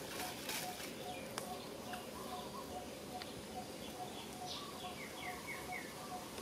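Birds calling: one bird repeats a single low note about two and a half times a second, and a run of four short, quick falling chirps comes near the end, with a few faint clicks from leaf litter.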